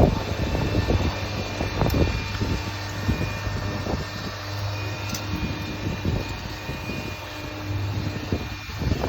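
A steady engine drone with a constant low hum, with a few faint knocks over it.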